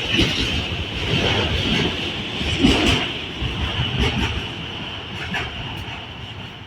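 Freight train cars rolling past on the rails, a steady clattering rumble that fades toward the end.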